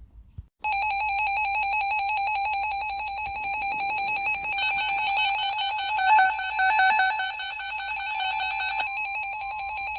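Weather alert radio receiver sounding its electronic warning alarm: a loud, rapidly pulsing beep that starts about half a second in, joined about four and a half seconds in by a second, higher pulsing alarm that cuts off near nine seconds. The alarm signals a newly issued severe thunderstorm warning.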